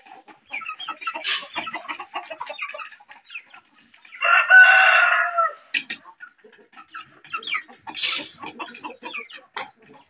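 Chickens clucking at feeding time, with a rooster crowing once for over a second about halfway through, the loudest sound. Two short sharp noises come about a second in and near eight seconds in.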